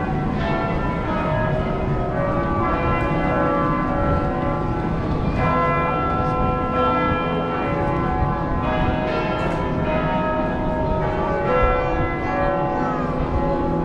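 Church bells of Notre-Dame Basilica pealing: several bells struck in turn, every second or two, their tones ringing on and overlapping.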